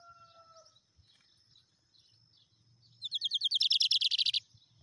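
Lined seedeater (bigodinho) singing one short, rapid trill of evenly spaced high notes, starting about three seconds in and lasting about a second and a half.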